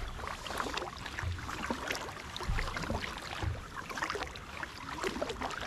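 Kayak paddle strokes: the blades of a double-bladed paddle dipping into calm water, with splashing and dripping. A few dull low thumps are mixed in.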